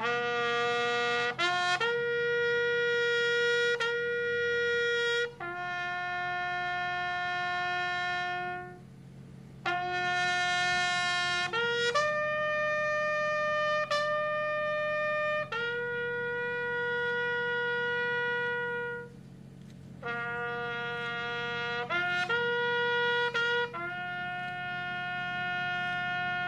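A lone brass horn plays a slow military bugle call honouring the dead: long held notes in phrases, with short breaks near the middle and about three-quarters through, then a few quicker notes before a final long note.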